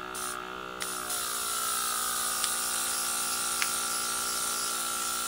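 Small airbrush compressor humming steadily. About a second in, the airbrush trigger opens and black paint sprays out with a steady hiss, with a couple of faint clicks.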